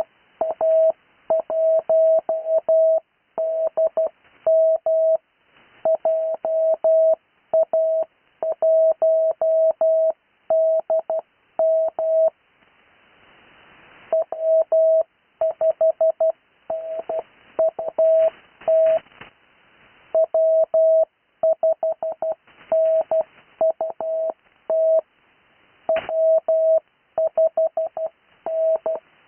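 Morse code (CW) tone of about 650 Hz keyed in dots and dashes, sending amateur radio callsigns at normal character speed without Farnsworth spacing. There is a longer pause of hiss near the middle and a single sharp click late on.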